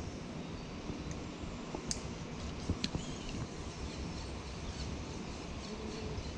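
Steady rush of a river's current, with a couple of light clicks near the middle.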